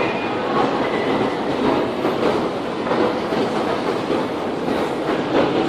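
Loud, steady rumble and clatter echoing through an underground metro station.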